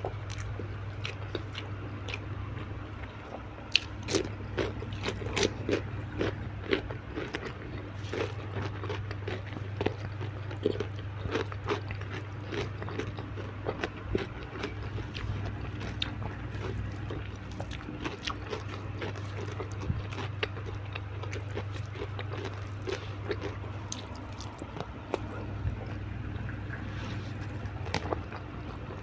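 Close-up eating sounds: chewing and crunching on raw vegetables and tilapia, with many sharp crunches throughout, over a steady low hum.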